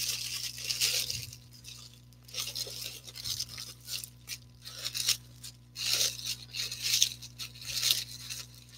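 Clear plastic bag around a batting helmet crinkling and rustling in irregular bursts as hands work it open.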